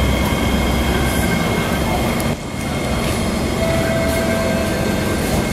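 Kawasaki C151 metro train standing at a platform: a steady hum from its on-board equipment with thin, steady high tones. A short mid-pitched whine comes in about three and a half seconds in and lasts about a second.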